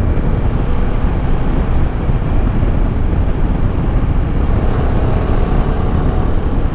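Royal Enfield Himalayan 450's single-cylinder engine running under way, under a steady low rumble of wind on the microphone.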